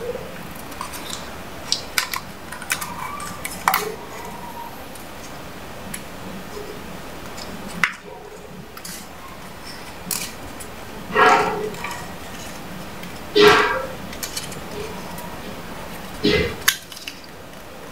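A banknote being folded and creased by hand: scattered crisp paper crinkles and clicks, with a few louder crackling rustles in the second half.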